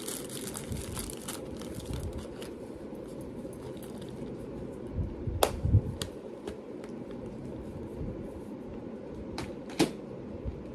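Small plastic bags and containers of jewelry findings being handled: light crinkling of plastic, then a few soft thumps and sharp clicks as items are set down and snapped, the sharpest click about ten seconds in, over a steady low room hum.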